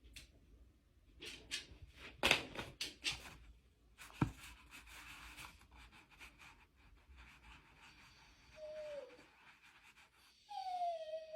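Faint rustling and a few clicks, then two short whining cries from a pet, each falling in pitch, the second a little longer, near the end.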